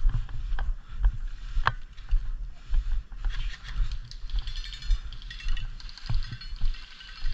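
Irregular knocks and clicks, a few of them sharp, over a steady low rumble.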